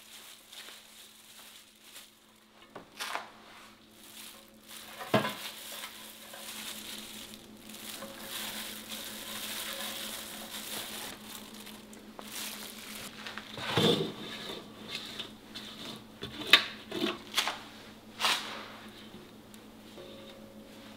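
Gloved hands mixing green onions with wet chili seasoning for green onion kimchi and packing them into stainless steel containers, a soft wet rustling and squishing. Several sharp metallic knocks and clinks from the steel bowl and containers come in the second half, the loudest about 14 seconds in.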